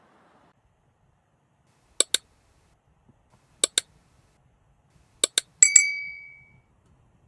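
Sharp clicks in pairs, three times about a second and a half apart, then a last pair of clinks that rings on as a clear tone, fading over about a second.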